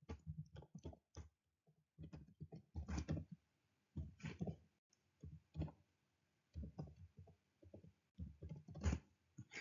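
Faint computer-keyboard typing: short runs of key clicks with brief pauses between them.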